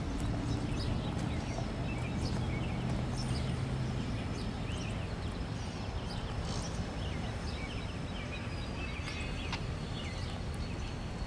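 Diesel road-switcher locomotive moving slowly at low throttle, a low engine drone that drops away after about four seconds into a steady rumble, with short chirps and clicks over it.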